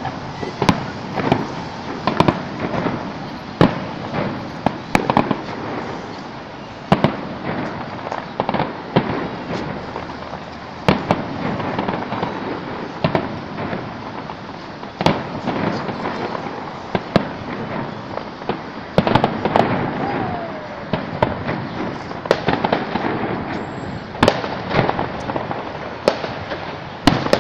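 Aerial fireworks bursting: sharp bangs at irregular intervals, about one a second, over a continuous dense crackle and patter of many more distant bursts.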